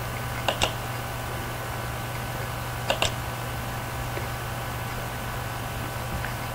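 Two computer mouse clicks, each a quick double tick of button press and release, about half a second in and again about three seconds in, over a steady low hum and hiss on the recording.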